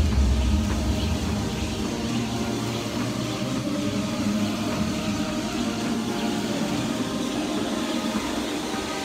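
Air rowing machine's fan flywheel whirring steadily as it is rowed.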